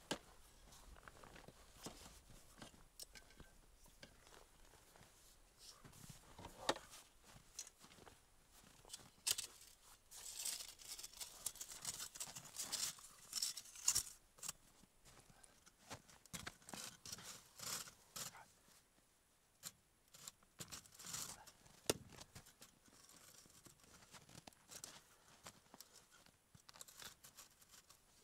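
Faint rustling of fabric, with scattered clicks and knocks from the metal frame, as a folding camp cot is unfolded and set up; the rustling is busiest in the middle.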